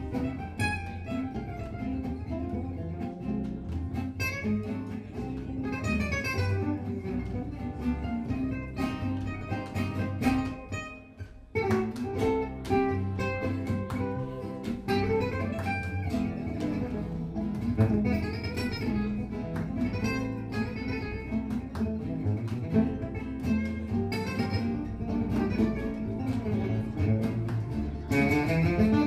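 Gypsy jazz band playing live: two Selmer-style acoustic guitars, the lead picking fast runs over the rhythm guitar's chords, with double bass and violin. The music breaks off briefly about eleven seconds in, then starts again.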